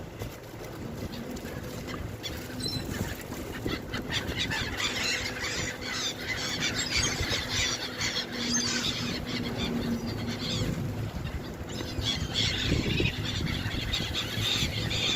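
A flock of seagulls calling over one another: many short, overlapping cries, thickest in the middle and again near the end, over a faint steady low hum.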